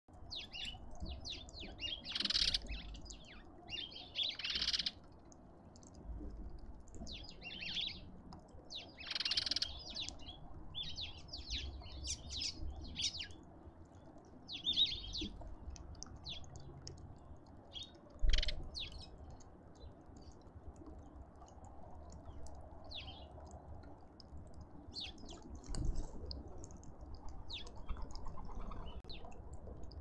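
Wild birds chirping and calling, many short high calls overlapping, with a few louder harsh calls in the first ten seconds. A faint low rumble runs underneath.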